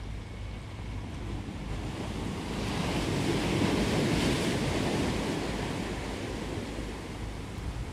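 A sea wave breaking on a rocky shore and washing back over the stones. It swells to its loudest about four seconds in, then eases off.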